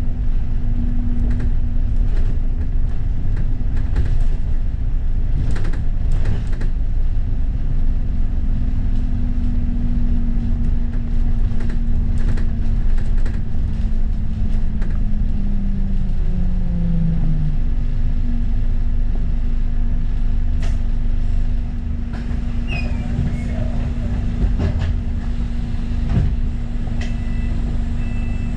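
London bus running along the road: a steady drivetrain drone over low road rumble, with scattered rattles and knocks from the body. The drone dips in pitch briefly about halfway through, then settles back.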